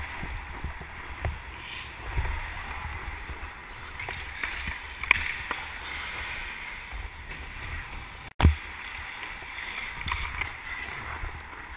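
Ice skate blades scraping and swishing on the ice during hockey, picked up by a helmet-mounted GoPro Hero 2 with wind rumble on its microphone. A sharp click about five seconds in, and a loud thump just after a brief dropout about eight seconds in.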